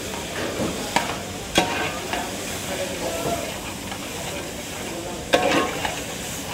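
Commercial kitchen noise: a steady hiss with sharp clatters, twice a little after a second in and once more about five seconds in.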